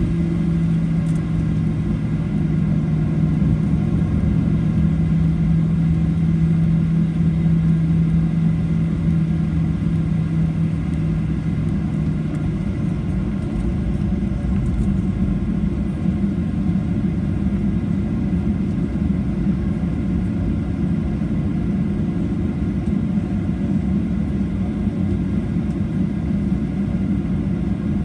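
Inside the cabin of a Boeing 737-800 over the wing while it taxis: a steady rumble of its CFM56-7B engines at low thrust and the rolling airframe. A low steady hum runs under it and stops about twelve seconds in.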